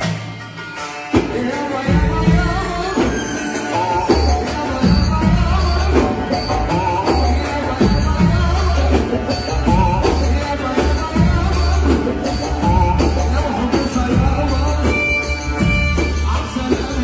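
Music with a steady beat: heavy bass pulses, jingling tambourine-like percussion and a melody line.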